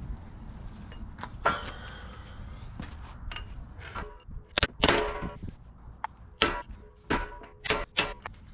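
Metal-on-metal hammer blows, about seven irregular strikes, several ringing briefly, as worn pins are driven out of a compact excavator.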